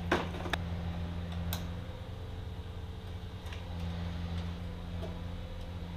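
A few scattered light clicks of small wiring parts being handled at the under-hood fuse box, over a steady low hum.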